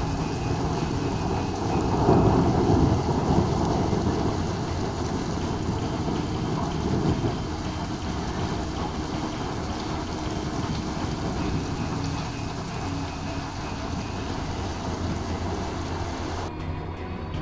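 Heavy rain pouring onto a wet street, a steady hiss, with a low rumble swelling about two seconds in and fading over the next few seconds. Music starts near the end.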